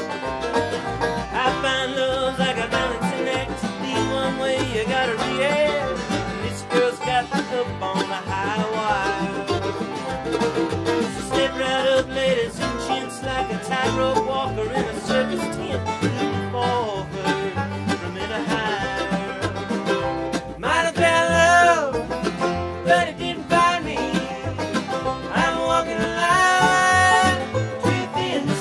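Acoustic bluegrass band playing live: banjo rolls over mandolin, acoustic guitar and a plucked upright bass.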